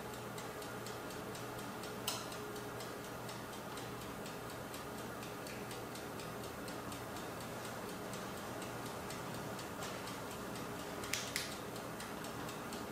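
Eastwood powder coating oven running: its mechanical timer ticks steadily and rapidly over a low hum, with a few sharper clicks, one about two seconds in and two close together near the end.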